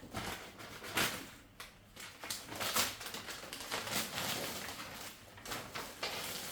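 Rustling and knocking of packages and bags being handled while packing a suitcase, in a string of uneven bursts.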